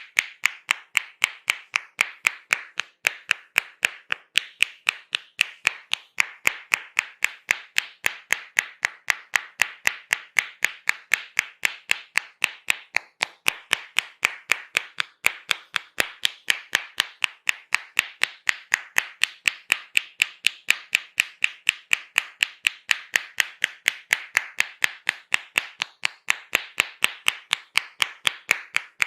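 Hand-clap percussion massage: a barber's hands clapping in a fast, very even rhythm, about four sharp claps a second.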